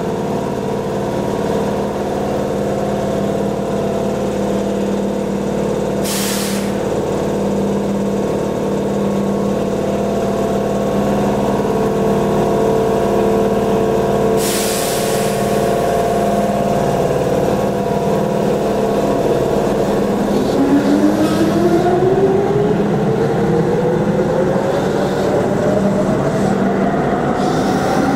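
Keihan electric train standing at the platform, its underfloor equipment giving a steady multi-tone hum. Two short hisses of compressed air come about 6 and 14 seconds in. From about 20 seconds in, the traction motors' whine rises steadily in pitch as the train pulls away.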